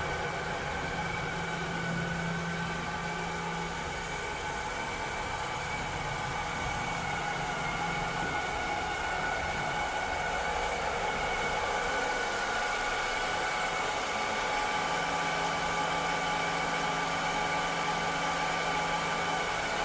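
Robot vacuum cleaner running: a steady whir with several steady high-pitched tones over it, and a low hum that drops out for a few seconds in the middle and then comes back.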